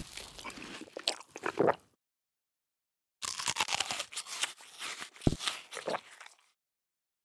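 Crisp eating crunches: a short run of crunching, then after about a second of silence a longer stretch of crunching and chewing as a crisp apple is bitten, with one dull thump partway through.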